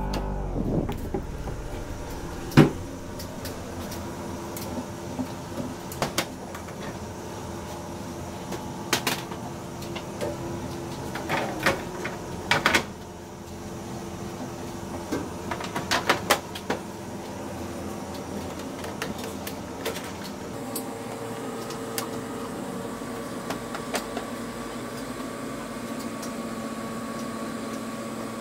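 Plastic food-dehydrator trays knocking and clattering now and then as they are handled and stacked, over a steady machine hum. A new low, steady hum sets in about twenty seconds in.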